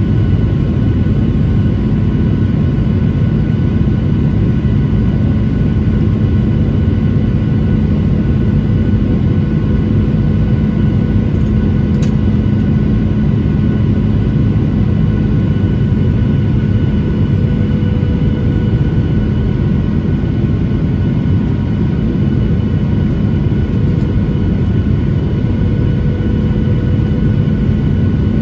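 Steady cabin noise inside a Boeing 737-900ER: a loud rumble of engines and airflow with several steady engine tones held on top.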